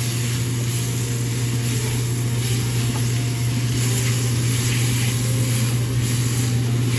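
A pan of mushrooms cooking on the stove, with a faint even hiss, under a steady low mechanical hum.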